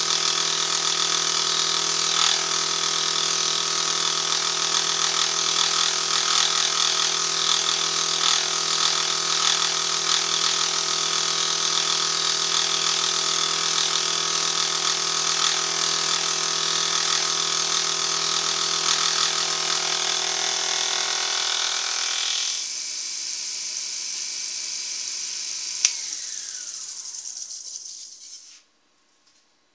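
Benchtop milling machine running a dovetail cutter through a cast iron cross slide, a steady whine and rattling cut. About 22 seconds in the cutting noise drops away, leaving the spindle running; a click near 26 seconds is followed by a falling whine as the spindle motor winds down to a stop.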